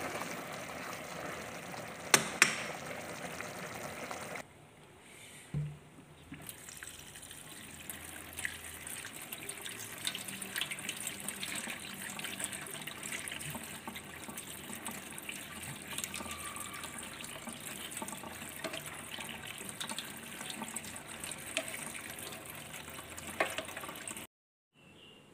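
A few seconds of tomato meat sauce simmering in a pot, with a couple of sharp clicks. After a short quieter gap, tap water runs steadily over cooked penne in a metal colander, with small clicks as a spatula turns the pasta. The sound cuts off suddenly near the end.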